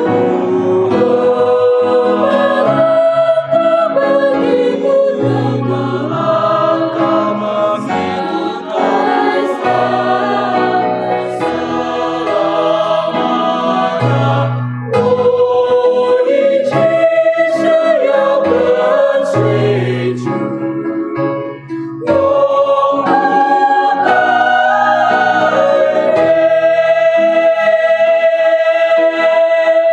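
Mixed choir of women's and men's voices singing a hymn in harmony, ending the phrase on a long held chord near the end.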